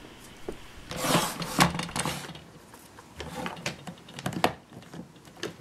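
Hard plastic toy parts of a Play-Doh ice cream tower set clicking and rattling as a blue plastic holder is handled and snapped onto the tower, in two spells of handling with a few sharp clicks.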